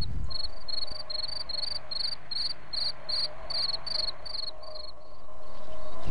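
Crickets chirping in an even pulse, roughly four short high chirps a second, stopping about five seconds in, over a faint steady hum.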